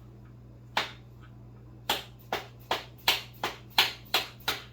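Hammer tapping the swingarm pivot bearings of a 1991 Honda CR250 back into place: about nine sharp taps, one alone about a second in, then coming faster, close to three a second. A steady low hum runs underneath.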